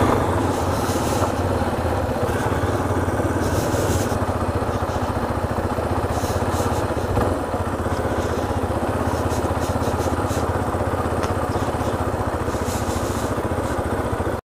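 Motorcycle engine running steadily as the bike is ridden slowly over a dirt track and onto grass.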